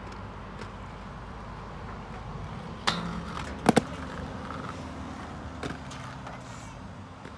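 Aggressive inline skates rolling on concrete, with a sharp clack about three seconds in as they lock onto a metal handrail, a short grind along it, then a loud double smack as they land just under a second later. A lighter knock follows a couple of seconds after that.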